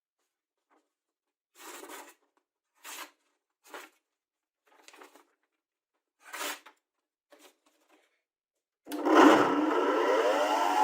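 A few short rubbing or scraping sounds, then an electric power tool switches on about nine seconds in, its motor rising in pitch as it spins up and then running steadily and loudly.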